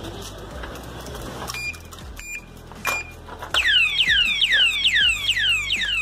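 Motion-sensing alarm padlock set off by being disturbed. It gives three short warning beeps about half a second apart, then about three and a half seconds in its siren starts: a loud, rapid run of falling whoops, about four a second.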